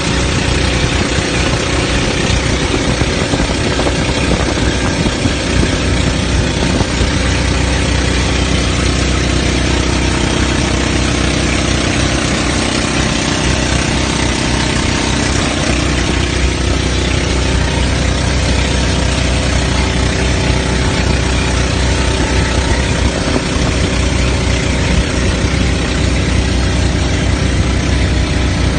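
Engine of a motorized outrigger boat running steadily under way, a constant low drone with a steady rushing hiss of water over it.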